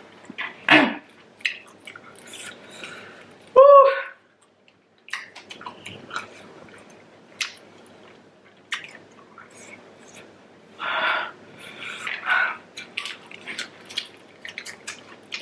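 Close-up eating sounds from someone working through very spicy saucy prawns: chewing, wet smacks and small clicks, with a few breathy huffs against the heat. About three and a half seconds in there is a brief high vocal sound that bends in pitch, like a pained whimper.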